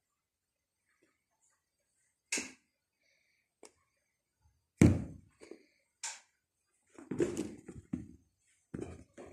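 Soft thumps and scuffing of a cat pouncing and scrabbling on a carpet as it plays with a string: a few scattered knocks, the loudest thump about halfway through, then a quick run of scuffs near the end.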